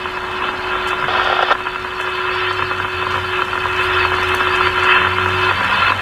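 Whelen WPS 2902 electronic outdoor warning siren sounding a steady tone during a siren test, with a low rumble joining about halfway through.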